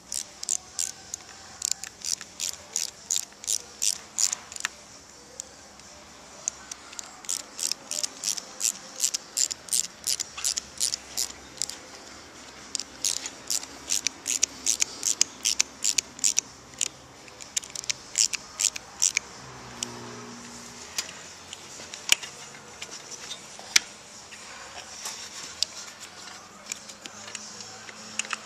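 Hand ratchet driver clicking in quick runs of about three clicks a second as a small clamp screw is turned, thinning to a few single clicks near the end.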